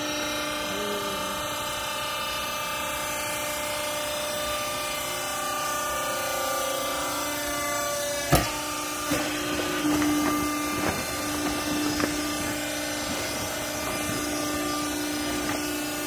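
Hydraulic pump motor of a vertical clothes baling press running with a steady hum. A sharp knock sounds a little after halfway through, followed by a few lighter clatters.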